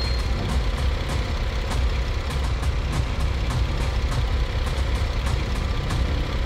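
Car engine idling, a steady low rumble, with faint light ticks over it.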